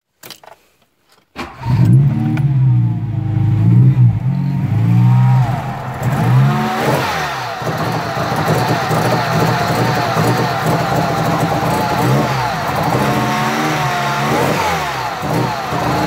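1989 Tofaş Doğan's four-cylinder petrol engine starting about a second and a half in, then revving and running with a wavering, unsteady speed. The uneven running is what the mechanic puts down to a valve problem, with the spark plugs likely wetted with fuel.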